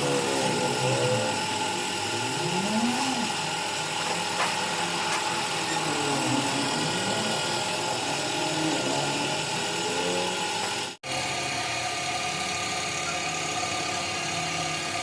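A power tool running with a steady high whine, its pitch wavering now and then. It breaks off for an instant about eleven seconds in and carries on.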